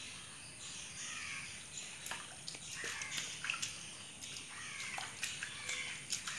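Bare feet wading through a shallow muddy puddle, the water sloshing and splashing lightly with each step, while birds call in the background.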